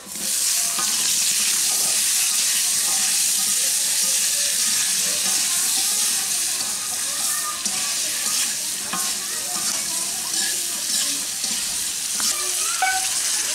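Vegetable pieces sizzling as they fry in hot oil in a kadai, stirred with a metal spatula that now and then clicks against the pan.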